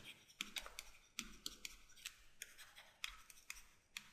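Faint, irregular ticks and scratches of a stylus writing on a tablet, about three or four a second.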